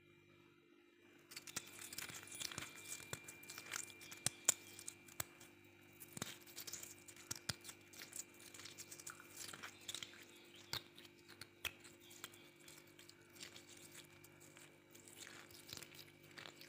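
Freezer frost being bitten and chewed, with dense, irregular crisp crunches starting about a second in.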